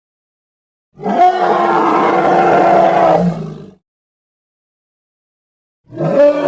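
Iguanodon roar sound effects: a pitched, bellowing dinosaur roar starts about a second in and lasts roughly two and a half seconds before fading out. After a gap of silence, a second roar begins near the end.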